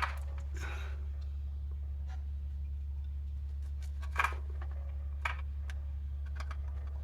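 A few short, faint scrapes and taps of a small tool working at a key fob's soldered-in battery tabs, over a steady low hum.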